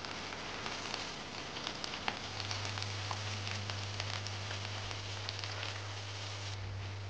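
Battered tempeh deep-frying in hot oil in a frying pan: a steady sizzle with many small crackles and pops. A low steady hum joins about two seconds in.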